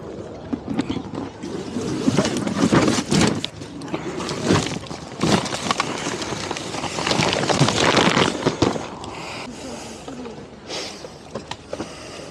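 Rustling, scraping and uneven knocks of a cardboard toy box being handled and packed into a wheeled trolley bag, loudest about two and seven seconds in, with voices in the background.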